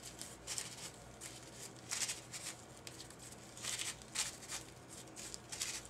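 Crumpled text-paper flower crinkling softly as an ink pad is dabbed and pressed into its petals, a few short rustles at uneven intervals.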